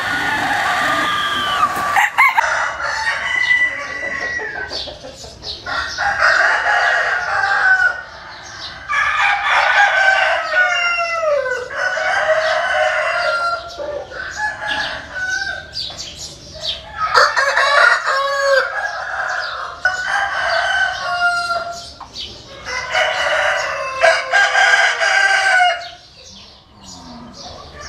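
Vietnamese gà tre bantam roosters crowing again and again, long crows following one another with shorter calls between.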